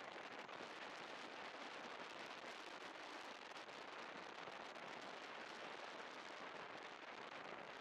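Steady crackling hiss of wind and road noise on a chest-mounted camera while riding a scooter, with no clear engine note.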